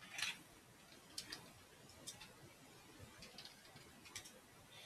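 Faint, scattered clicks of computer keyboard keys being typed, about eight keystrokes spaced irregularly.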